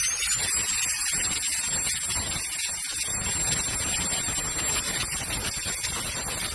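Handheld mini turbo jet blower's brushless motor running at full speed: a high whine that finishes rising in pitch about half a second in and then holds steady over a strong rush of air.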